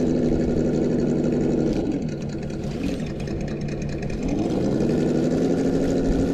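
Simulated engine sound from an RC crawler's Sense Dual ESS sound kit, played through its onboard speaker. The steady engine note drops to a lower, quieter idle about two seconds in, then climbs again about four seconds in as throttle comes back on.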